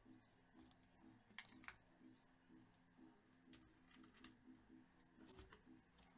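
Near silence: faint room tone with a few soft, scattered clicks and taps.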